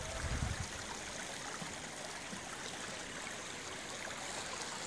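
Small mountain creek running over stones, a steady rushing babble. A few low rumbling bumps in the first half second.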